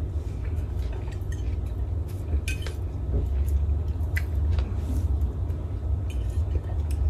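Metal fork clinking and scraping on a plate during a meal: a few scattered light clicks over a steady low hum.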